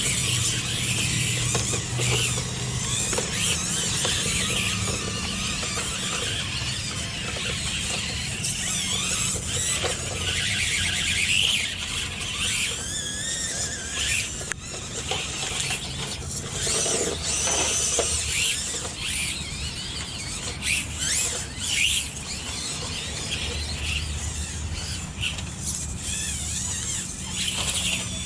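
Small electric motors and gear drivetrains of 1/24-scale RC rock crawlers whining steadily, the pitch rising and falling with the throttle as they climb, with scattered clicks and scrapes of tyres on rock.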